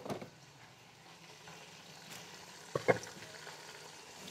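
Ginger-garlic paste and ground spices sizzling faintly in hot ghee in an aluminium pot, being stirred with a spatula. A sharp knock about three seconds in.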